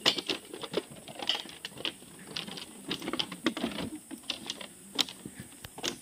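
Footsteps on a walkway of loose bamboo slats over wooden planks: an irregular run of sharp clicks and clacks, a few per second, that stops near the end.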